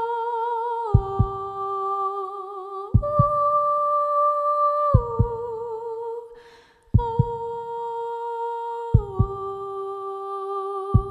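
Wordless female voice humming long held notes with vibrato, moving to a new note about every two seconds, over a low double thump like a heartbeat that comes every two seconds. A breath is drawn about six and a half seconds in.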